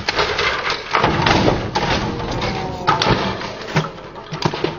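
Aftermath of a car airbag set off inside an office printer: a rush of noise with repeated thuds and clatters as pieces of the printer come down onto the gravel and a car, easing off near the end.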